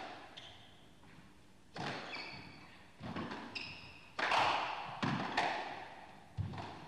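A squash rally: the ball is struck by rackets and thuds off the court walls about once a second, mixed with short squeaks of court shoes on the floor.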